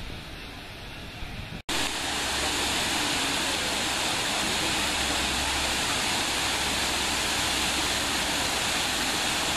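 Quiet outdoor ambience, then after a brief dropout a little under two seconds in, a steady rush of falling water.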